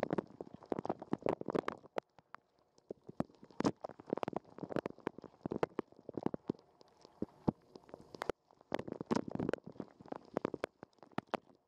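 Dishwasher wash water spraying and splashing against a waterproof camera housing inside the machine. It is heard as muffled, irregular spattering and knocks that come in surges every two to three seconds.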